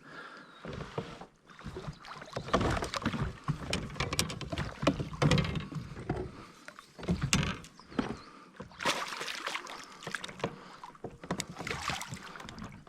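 Irregular knocks, clicks and water noise around a kayak while a big hooked fish is being fought and brought alongside.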